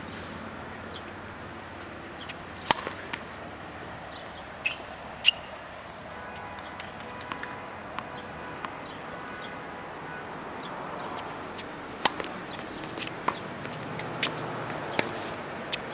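Tennis ball pops sharply off rackets and bounces on a hard court, with scattered footsteps. There are single loud pops about 3 and 5 seconds in, then quicker pops from about 12 seconds in as a rally gets going.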